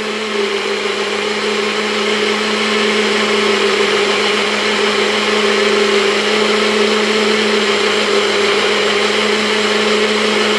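Nutribullet Pro 900-watt blender running steadily, its motor holding a constant hum as it blends chunks of fruit, carrot and ginger with water into a smoothie. It grows a little louder over the first couple of seconds, then holds even.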